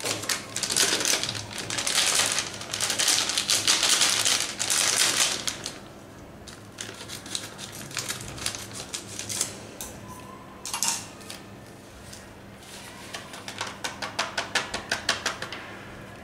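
Plastic packet of MTR instant gulab jamun mix crinkling and rustling as it is handled and cut open, loudest for the first five seconds or so. Near the end comes a quick run of crackles as the packet is shaken and the powdered mix pours out onto a plate.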